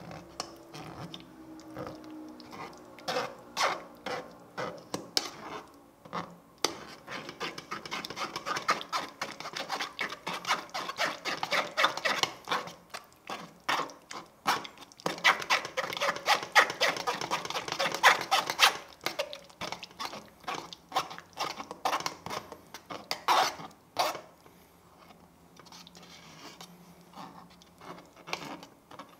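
A spoon scraping and rubbing persimmon pulp through a fine-mesh metal sieve: fast, repeated rasping strokes, sparse at first, thick and loudest through the middle, thinning out near the end.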